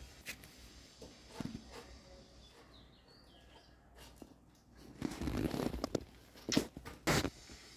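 Puppy playing with a plastic drink bottle on a tiled floor: scattered light knocks early on, a scuffling, rustling stretch about five seconds in, then two sharp clatters of the plastic bottle on the tiles near the end.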